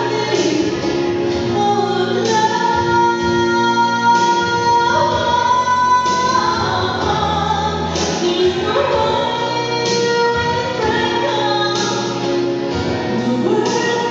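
A woman singing a song into a microphone, holding long notes, over amplified keyboard accompaniment with a steady beat.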